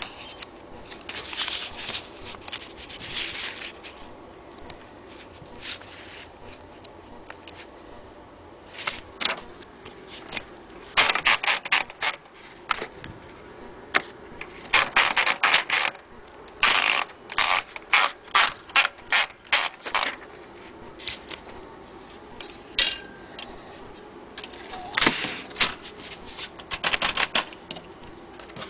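Vintage Olympia typewriter being typed on: runs of sharp key strikes, several a second, separated by pauses, with a few longer mechanical sounds near the start.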